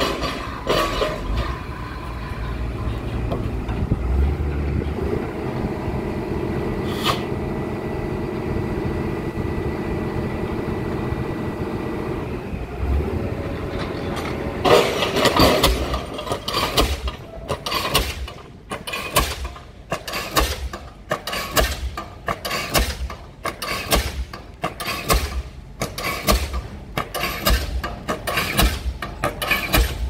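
Pile-driving rig's engine running steadily, then about halfway through a diesel pile hammer on a guided leader fires and starts pounding a concrete pile, with evenly spaced heavy blows a little faster than one a second.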